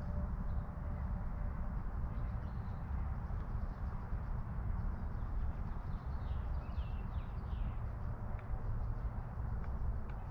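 Wind buffeting the microphone, a dense, uneven low rumble, with a few short bird chirps about two-thirds of the way through.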